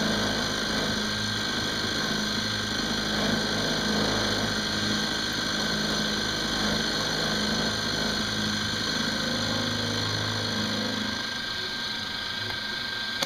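Benchtop mill-drill running steadily at about 1500 RPM as its end mill takes a slow, light finishing pass through an aluminium blank. The low part of the sound thins out and the whole grows slightly quieter from about ten seconds in, as the pass nears its end.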